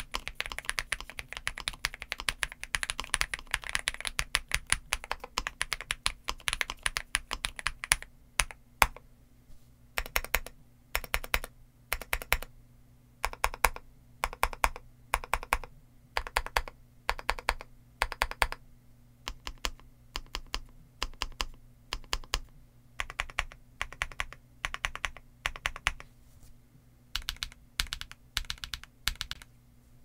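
NuPhy GEM80 mechanical keyboard, built with a POM plate, silicone bean mounts, NuPhy Mint switches and PBT MSA-profile keycaps, being typed on. For about the first eight seconds the typing is fast and continuous. After that come separate keystrokes in short runs of a few presses, with brief pauses between.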